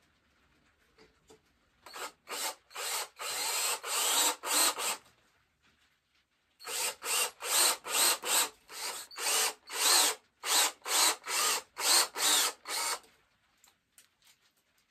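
Cordless drill boring the spout hole into the solid tip of a powder horn, run in short pulses of the trigger, about two a second. There are two spells of drilling with a pause of a second or so between them.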